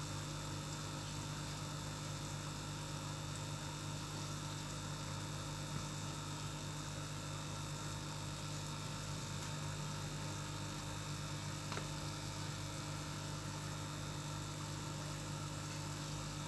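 Steady low hum of an aquarium air pump driving the tank's airline, with an even hiss over it.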